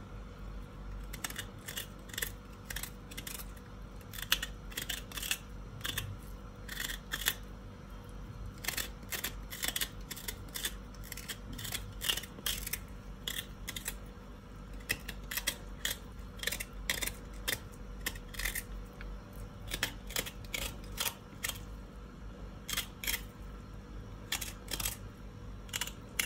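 Small paring knife scraping the skin off a knobbly root vegetable, in many short, irregular scraping strokes, with a steady low hum underneath.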